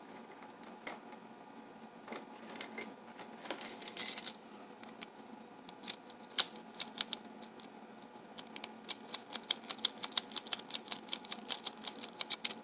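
Keys jangling and small metallic clicks as keys and a Sargent 758 padlock are handled, with a dense run of quick clicks over the last few seconds.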